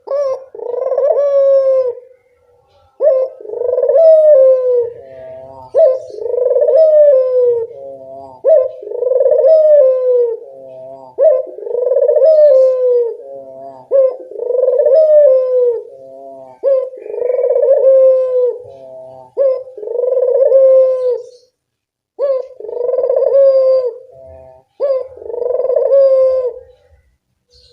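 Ringneck dove (burung puter) cooing over and over, about one long falling call every two to three seconds, with short softer notes between the calls.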